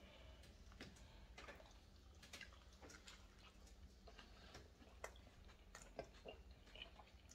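Faint chewing of crunchy pizza crust: irregular small crunches and clicks over a low steady hum.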